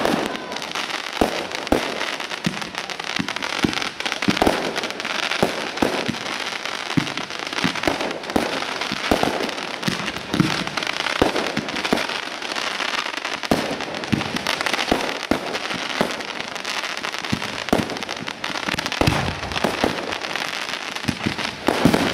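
Fireworks display: aerial shells going off in quick, irregular succession, often several bangs a second, over a continuous hiss.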